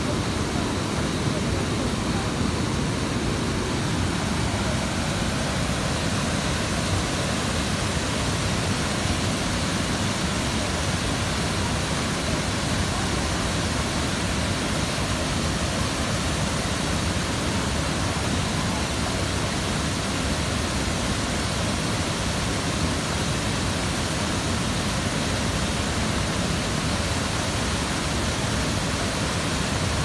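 Water pouring over a wide, low river waterfall: a steady, unbroken rush of falling water.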